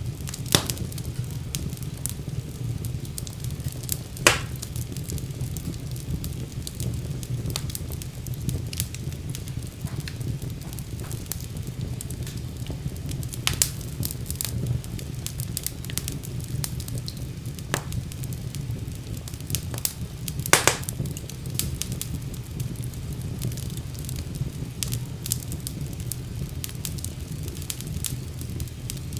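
Fire in a fireplace crackling steadily over a low rumble of burning, with a few sharper pops standing out, the loudest about four seconds in and about twenty seconds in.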